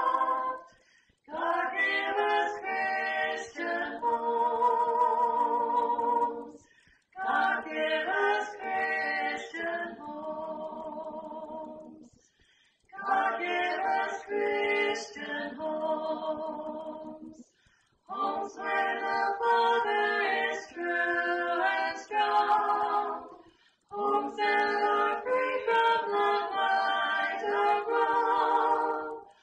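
Unaccompanied choir singing, in phrases broken by short pauses every five or six seconds.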